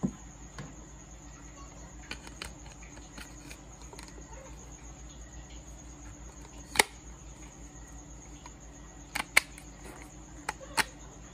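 Sharp plastic clicks and knocks as a submersible aquarium pump's housing and intake grille are handled: one a little past the middle, then four close together near the end. A steady high-pitched tone runs in the background.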